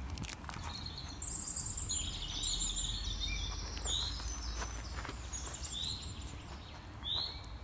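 Several birds chirping and calling over one another, with one short call repeated every second or so in the second half, over a steady low rumble. A few clicks near the start.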